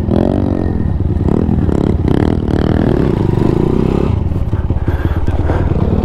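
Small motorcycle engine revving up and down under a rider's throttle as the bike climbs slowly over a log.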